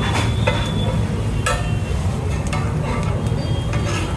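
Vegetable pulao frying and sizzling in a pan while a metal spatula stirs it, scraping and striking the pan a few times, over a steady low rumble.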